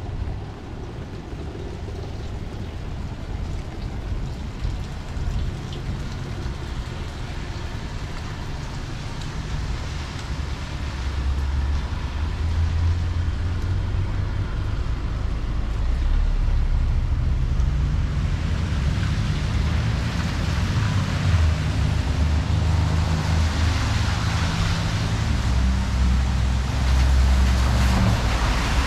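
Rain falling on a city street with motor traffic: a steady hiss over a low vehicle rumble. The rumble grows louder about halfway through, and the hiss swells toward the end.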